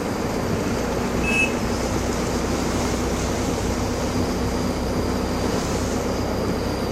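Steady running noise of a motor vehicle, with a constant low engine hum under an even wash of noise.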